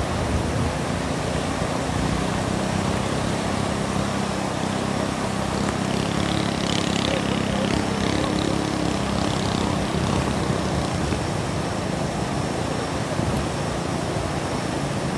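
Swift, choppy water rushing and churning, a steady wash, with a faint steady motor hum underneath through the middle part.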